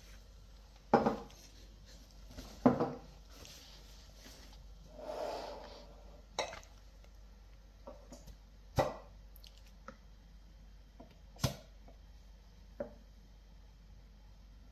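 Glass jars set down on a hard countertop and their glass lids lifted off and put down: a series of sharp clinks and knocks, about five loud ones and a few lighter ones, with a brief rustle about five seconds in.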